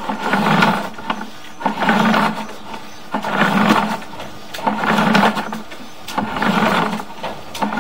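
Sewer inspection camera's push cable being pulled back out of the line by hand, a sliding noise in even strokes about every second and a half.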